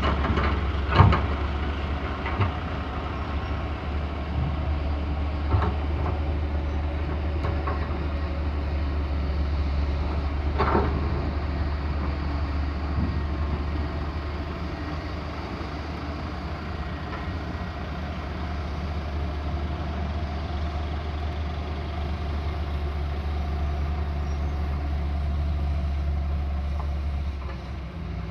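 Excavator's heavy diesel engine running steadily, with a few sharp metal knocks, the loudest about a second in. The engine sound falls off just before the end.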